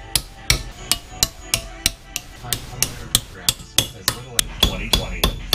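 Hammer striking a small metal strip clamped in a bench vise, about three even blows a second, each with a short metallic ring, bending the strip over to form a flat top.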